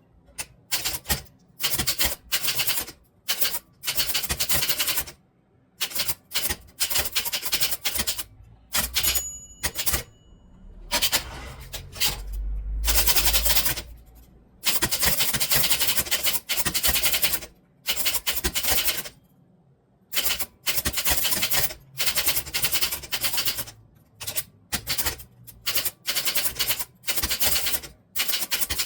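Typewriter being typed on in quick runs of key strikes separated by short pauses. A brief ringing tone sounds about nine seconds in, typical of the margin bell, followed a couple of seconds later by a longer, heavier stretch.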